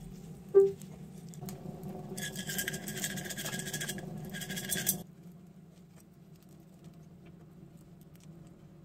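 A metal jug clinks once against a metal muffin tin, then a cloth rubs over the jug for about three seconds, with a short break, over a low steady hum.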